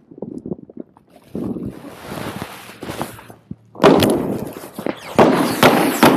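Body-worn camera rubbing and jostling, with rustling and several sharp knocks and thuds; it gets loud from about four seconds in.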